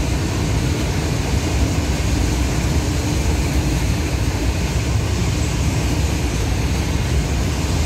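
Long freight train of covered goods wagons rolling past on electrified track: a loud, steady rumble of wagon wheels on the rails.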